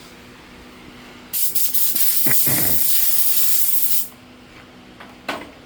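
Sprayway aerosol can spraying: a few short squirts, then one steady hiss lasting about two and a half seconds that stops abruptly. A brief knock follows near the end.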